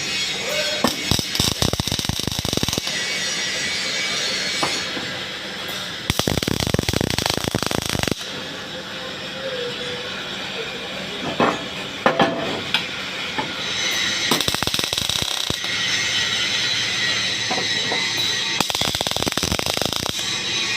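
Arc welding: spells of dense, rapid crackling a couple of seconds long, the longest about six seconds in, over a steady hiss.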